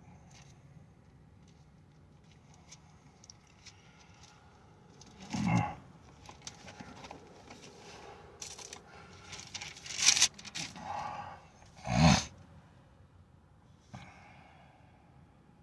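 Quiet rustling and handling noises, with louder sharp rustles about five and a half, ten and twelve seconds in.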